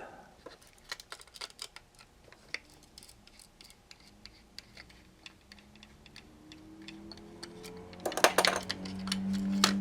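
Small clicks and taps of plastic parts and small tools being handled while a handheld plastic device is taken apart. From about halfway a low tone rises in pitch and then holds steady, growing louder near the end, joined by a cluster of louder clicks and clatter.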